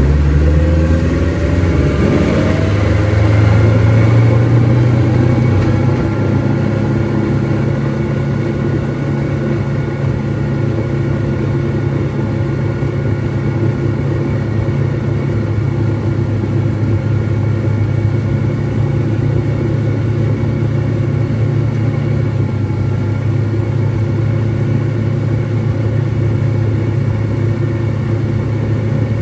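A 150 hp Mercury outboard motor running under power, its pitch rising over the first three seconds or so as it speeds up, then holding steady at speed.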